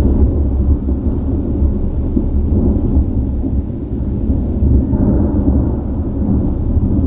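Almost unbroken thunder from a supercell thunderstorm: countless claps following one another so closely that they merge into one continuous low rumble, swelling slightly about five seconds in.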